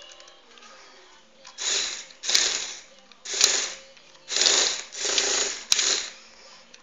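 Home-built Lego Technic paper shredder running in about five noisy bursts of under a second each, starting about a second and a half in, with a faint steady hum between them.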